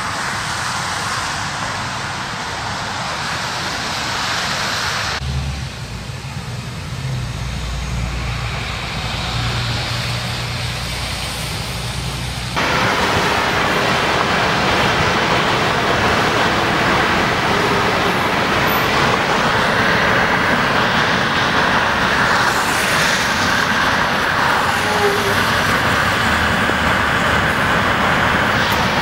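Road traffic on a rain-wet freeway: vehicle engines and tyres hissing on wet pavement, as a steady noise that grows louder a little before halfway through.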